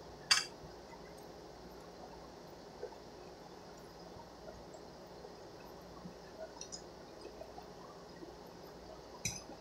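Quiet eating from a pot: a metal spoon gives one sharp clink against the stainless steel pot just after the start, then only faint small clicks while he chews, and a few light spoon clinks near the end.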